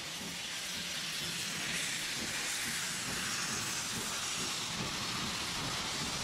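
Lancashire and Yorkshire Railway steam locomotive passing close with its coaches: a steady hiss of escaping steam over the rumble of the train. The hiss builds over the first second.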